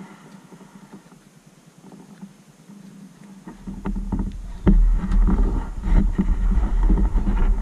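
Dirt bike engine running at idle, with a heavy low rumble and knocks on the camera microphone from about three and a half seconds in, when the sound gets much louder.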